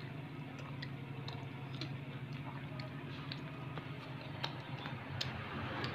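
Hand eating biryani from a steel plate: faint, scattered clicks and ticks of fingers and rice against the metal, over a steady low hum.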